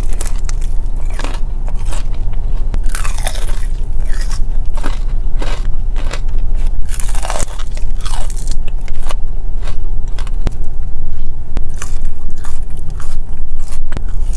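Close-miked biting and chewing of crispy fried chicken wings: irregular crunches of the breading and wet mouth sounds, over a steady low rumble.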